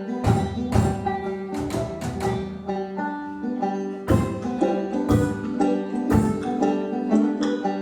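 Live band playing an instrumental passage: plucked strings pick a melody over repeated drum hits.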